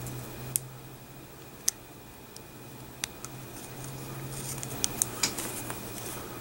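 Handling noise from a Kanger UniTank clearomizer: scattered small sharp clicks and taps of its metal caps in the fingers, several of them close together near the end, over a faint steady low hum.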